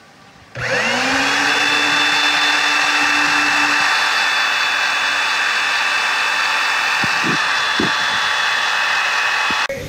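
Electric drill with a long auger bit boring a hole into an oak plank. The motor spins up about half a second in, runs steadily under load while the bit throws out chips, and stops just before the end.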